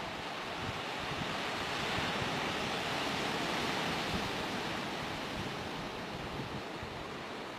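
Sea surf washing steadily, with some wind, swelling a little a couple of seconds in and then easing off.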